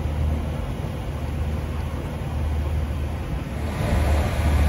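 Sailboat's Yanmar diesel engine running steadily under motor with a low rumble. About three and a half seconds in, a louder rush of wind and water comes in over it.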